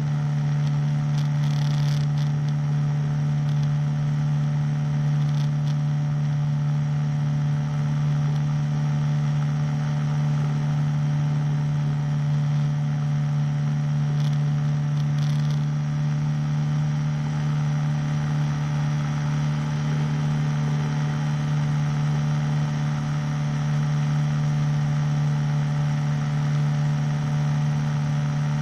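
The small piston engine of a powered hang glider running steadily in flight, a constant drone at one unchanging pitch.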